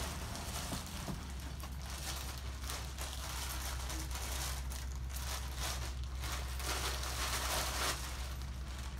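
Clear plastic bag crinkling and rustling in uneven bursts as it is handled and pulled off a packaged item, over a steady low hum.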